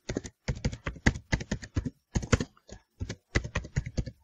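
Typing on a computer keyboard: a quick, irregular run of key clicks with a couple of brief pauses.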